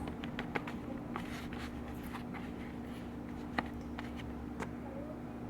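Slime being mixed and kneaded by hand in a container: scattered soft sticky clicks and rubbing, over a steady low hum.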